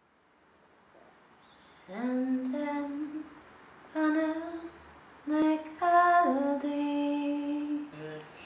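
A woman's voice singing a slow, wordless melody in long held notes, starting about two seconds in.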